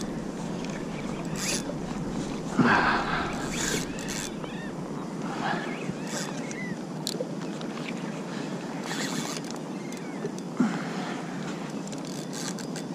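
Water splashing and lapping around a kayak, with wind on the microphone. There are sharper knocks or splashes about two and a half seconds in and again near ten and a half seconds.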